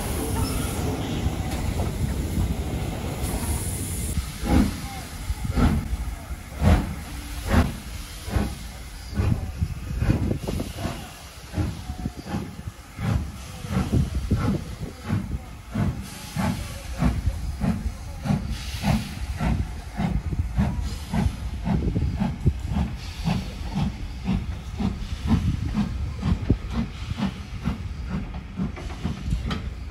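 BR Standard Class 9F 2-10-0 steam locomotive hissing steam from its cylinder drain cocks, with regular exhaust chuffs that quicken from about one a second to about two a second.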